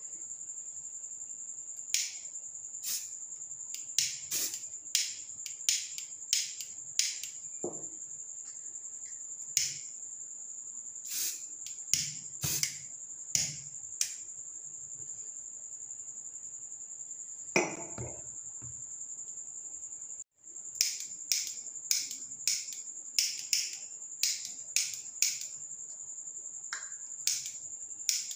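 A plastic lighter being struck over and over, sharp clicks in irregular runs, with one louder knock partway through. A steady high cricket chirp continues behind it.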